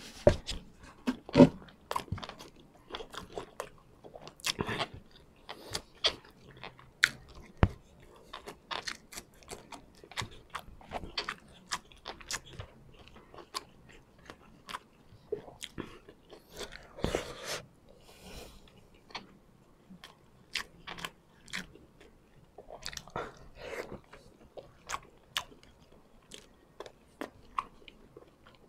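Close-miked chewing of braised pork adobo and rice: wet, irregular smacks and clicks of the mouth and lips, a few every second, with a longer, louder patch of mouth noise partway through.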